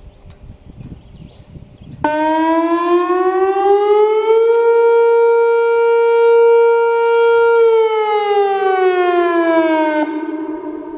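Whelen WPS-2802 electronic storm siren sounding a test signal. About two seconds in it starts suddenly and climbs to a steady pitch near 465 Hz, holds for about three seconds, then falls back down and cuts off near the end.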